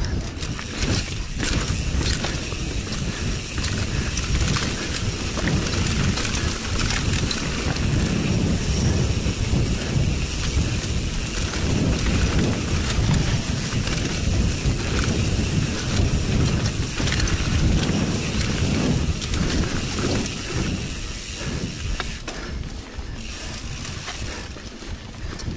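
Mountain bike riding fast down a dirt trail: tyres rolling over dirt, leaves and roots with a steady rumble, and the bike rattling and clicking over the bumps.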